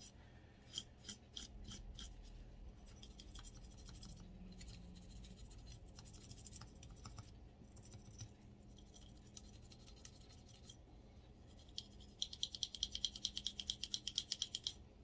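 Cleaning brush scratching at a pistol slide, scrubbing carbon from around the exposed firing pin: light, scattered strokes at first, then a quick even run of brisk back-and-forth strokes near the end.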